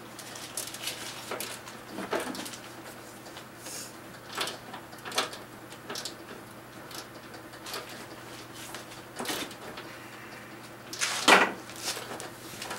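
Scattered light clicks and knocks of hand tools and small metal and plastic parts being handled during a vehicle teardown, with a louder clatter about eleven seconds in.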